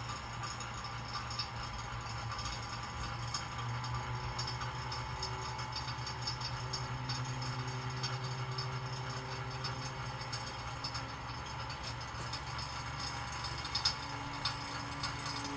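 Electric AC vacuum pump running steadily with a rattly hum, pulling a vacuum on a car's air-conditioning system to check it for leaks.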